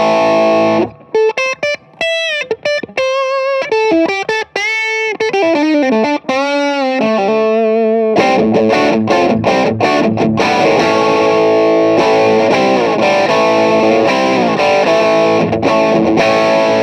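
Electric guitar played through a Cerberus pedal on its Plexi channel, a gain between overdrive and distortion. A held chord, then a quick line of single notes with some vibrato, then, from about eight seconds in, sustained distorted chords.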